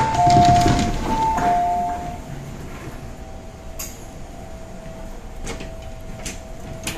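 A sharp knock, then a two-note electronic chime sounding twice inside an MTR M-Train carriage, over the train's faint steady hum with a few light clicks.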